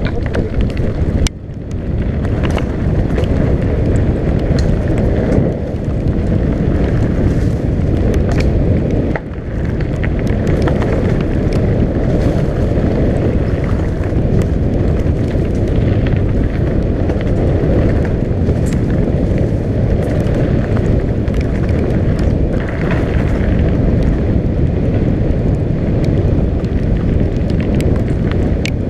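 Heavy wind buffeting on a bike-mounted camera's microphone during a fast mountain-bike descent, mixed with the tyres rumbling over a wet dirt trail. Sharp knocks and rattles from the bike hitting bumps come through here and there.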